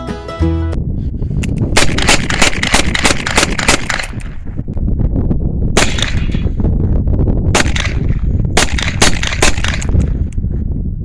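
A Taurus 942 .22 LR revolver firing a string of shots, in quick clusters with short pauses between them. Bluegrass music cuts off within the first second.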